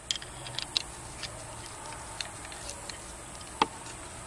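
Light metal clicks and taps from a screwdriver and hands working at hose clamps in an engine bay: a few quick clicks in the first second, then one sharper click about three and a half seconds in.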